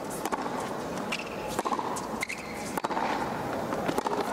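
Tennis rally on a hard court: rackets strike the ball about every second and a quarter, with fainter ball bounces between, over a steady background hum of the stadium.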